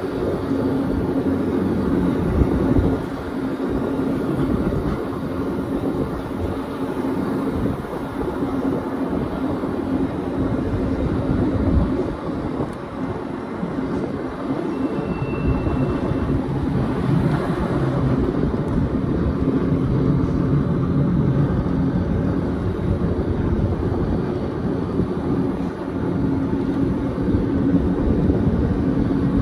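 Gornergrat Railway electric rack train running along its track: a steady rumble of wheels and running gear under a steady low hum.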